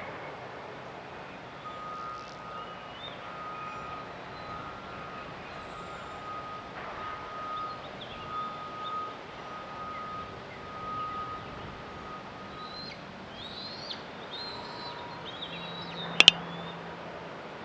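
Outdoor ambience with a steady hiss. For about ten seconds a short note at one even pitch repeats about once or twice a second. Near the end come quick bird chirps, and then a sharp double click, the loudest sound here.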